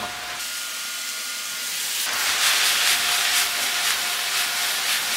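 Chicken and vegetables sizzling in butter and oil in a frying pan on a gas burner. The hiss grows louder about two seconds in, with a dense crackle.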